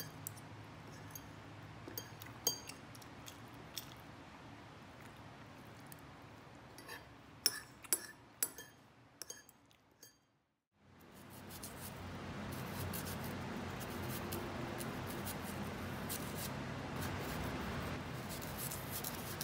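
A metal spoon and fork clinking and scraping against a ceramic bowl as the last of a curry is scooped up, with a few sharp clinks, the loudest about eight seconds in. After a brief cut to silence comes a steadier soft hiss with faint small ticks as a knife peels an apple.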